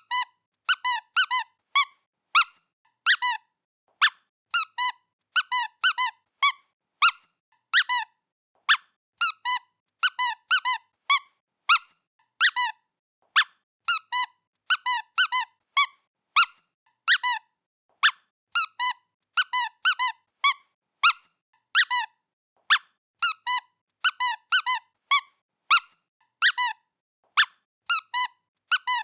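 Squeaky pet toy squeaked over and over as a cat plays with it: short high squeaks, often two in quick succession, at an irregular pace of one or two a second.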